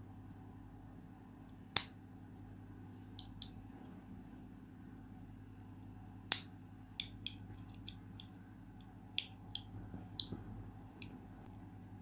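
Binder-clip bead roller fidget being worked by hand: a bead clicks against the clip's metal wire handles. Two sharp, loud clicks come about two and six seconds in, followed by a scattered run of lighter clicks, over a faint steady hum.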